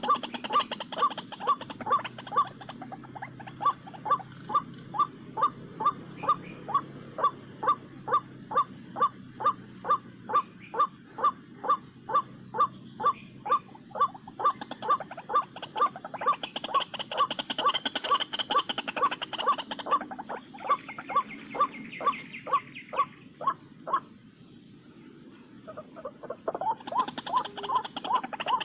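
White-breasted waterhen (ruak-ruak) calling, a loud monotonous call repeated about two to three times a second. It breaks off for a couple of seconds near the end, then starts again. A steady high insect drone runs underneath.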